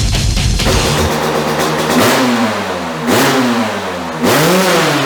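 Heavy metal music cuts off, and the single-cylinder 500 cc two-stroke engine of a Yamaha YZ500 built with a BRC Racing YZM500 engine kit runs and is revved three times. Each throttle blip rises sharply and falls back, about a second apart, and the last is held longest.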